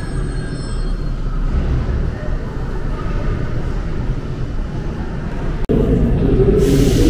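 Alstom MP-05 rubber-tyred metro train running, a steady rumble with thin high squealing tones that fade out in the first second. Near the end the sound drops out for an instant, then comes back louder and hissier.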